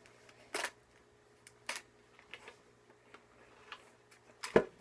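A handful of light, separate clicks and taps from handling a cordless drill and a piece of wood, the loudest near the end; the drill motor is not running.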